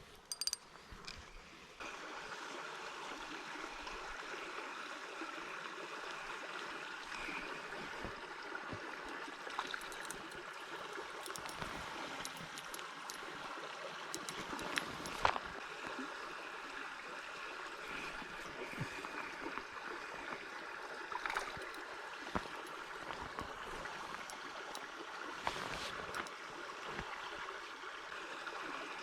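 Small river running: a steady rush of flowing water that comes in about two seconds in, with a few faint clicks and knocks over it.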